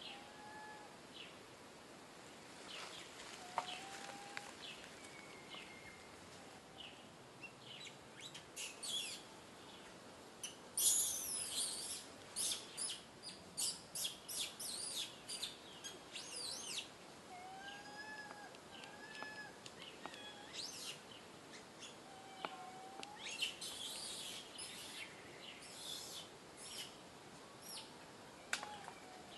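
Birds chirping in rapid, high-pitched runs, with two bursts of quick chirps about a third of the way in and again near the end. Scattered among them are short, single arched whistled calls.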